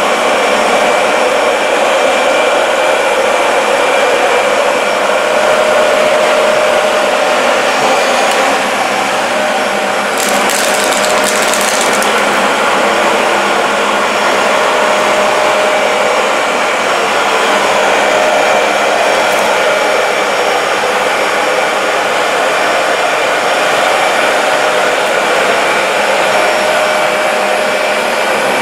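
Dyson DC40 MKII upright vacuum cleaner running steadily as it vacuums a dirty rug, a constant motor whine with steady tones. A short burst of crackling comes about ten seconds in.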